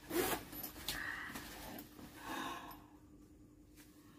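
Zipper on a Herschel backpack being pulled open in a few short rasps, the first the loudest, with soft rustling of the bag's fabric.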